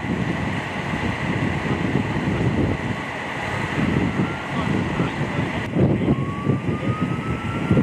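Wind rumbling on the microphone over a faint steady high whine. About six seconds in, after a cut, a fire engine is heard on the road, with a siren tone rising slowly.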